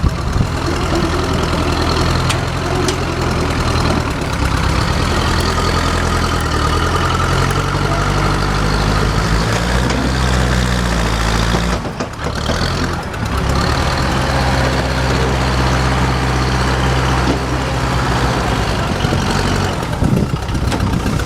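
Heavy equipment's diesel engine running under working load, its pitch shifting now and then, with a brief break about twelve seconds in.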